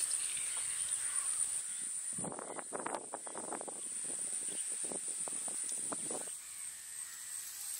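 Crows cawing several times in quick, irregular succession, from about two seconds in until about six seconds in.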